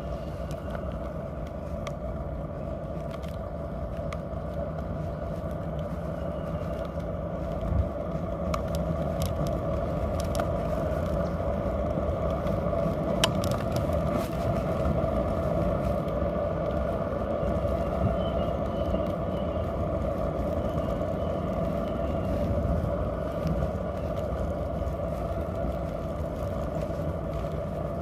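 Kick scooter wheels rolling steadily over asphalt: a continuous rumbling whir with scattered sharp clicks and ticks from bumps and grit in the pavement.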